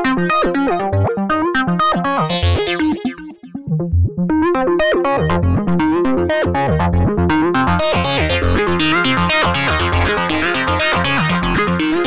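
u-he Hive 2 software synthesizer playing its 'AZ Beyond' melodic loop preset: a fast sequenced pattern of short synth notes. The pattern thins out briefly about three and a half seconds in, then turns brighter and fuller from about eight seconds in.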